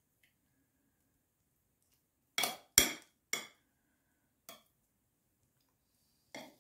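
Metal table knife clinking against a porcelain serving platter while spreading mayonnaise on a salad: five sharp clinks, three in quick succession before the middle and two more spaced out later, each ringing briefly.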